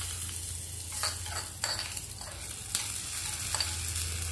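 Hot tempering oil with mustard seeds, chillies and curry leaves sizzling as it is spooned from a small steel tadka pan onto chutney, with a few short clinks of the spoon against the pan.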